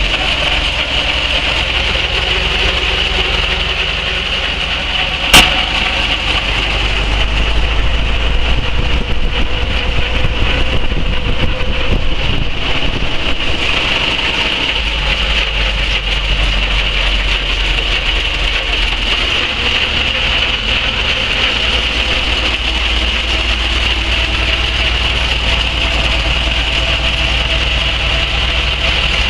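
1928 Foden steam timber tractor running along a road, heard from inside its cab: steady mechanical running with rumble and hiss. A single sharp knock about five seconds in.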